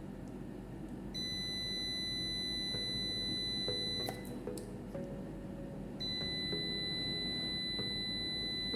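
Digital multimeter's continuity buzzer giving a steady high beep twice, about three seconds each, starting about a second in and again about six seconds in, with the probes across the SMPS main filter capacitor. The beep shows a short across the capacitor: the supply's DC side is shorted.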